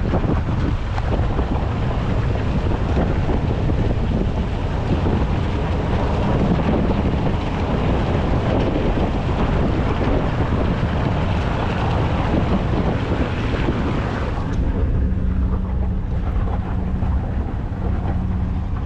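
Truck driving, with heavy wind noise rushing over the microphone. About three quarters of the way through the rush drops away, leaving a steady low engine hum.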